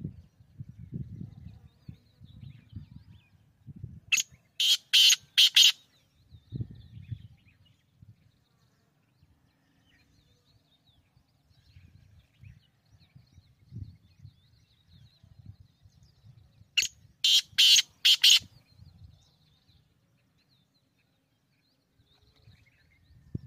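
Black francolin (kala teetar) calling twice, about twelve seconds apart. Each call is a loud phrase of about five harsh, rasping notes lasting about a second and a half. A low rumble and faint chirps of small birds fill the gaps.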